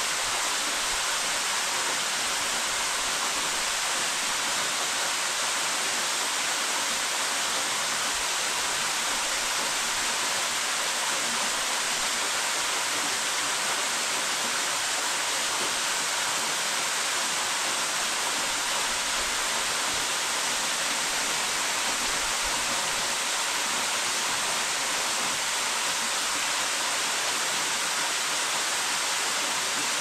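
A small waterfall falling down a rock face into a shallow plunge pool: a steady, even rush of water with a strong hiss.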